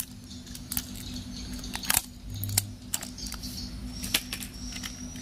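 Scattered light clicks and taps of hard plastic as a battery-powered toy train engine is handled, its battery compartment opened and a battery fitted.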